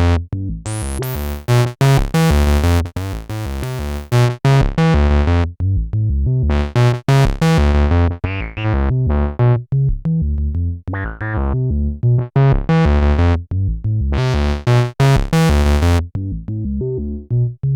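Roland SE-02 analog synthesizer playing a run of short bass-heavy notes. The tone alternately brightens and goes dull as the filter opens and closes.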